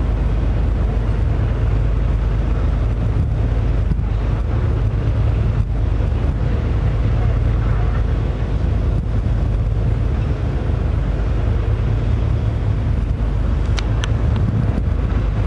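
Wind buffeting the camera microphone, a loud, steady low rumble, with two sharp clicks near the end.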